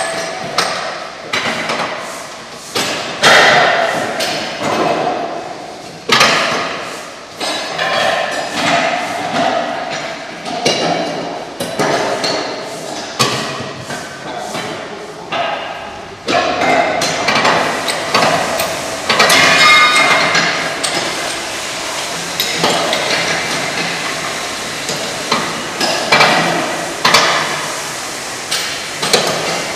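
Many irregular, overlapping metallic clanks and pings as several workers tighten the flange bolts of a steel concrete-pole mould with wrenches, metal striking and ringing on metal.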